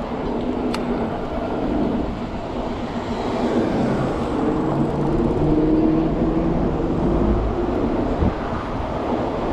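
City traffic noise: a motor vehicle's engine running close by with a low, shifting hum, over wind rush on the microphone.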